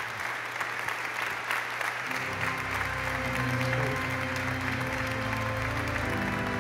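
Congregation applauding steadily. About two seconds in, instrumental music enters under the clapping with sustained low chords.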